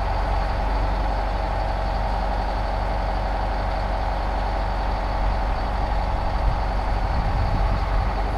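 Diesel engine of a loader running steadily, a little more uneven in the second half.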